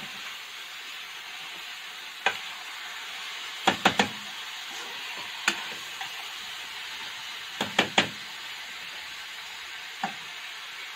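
Chicken pieces sizzling steadily in a stainless steel frying pan while a metal spoon stirs them. The spoon knocks sharply against the pan now and then, with quick runs of three knocks about four and eight seconds in.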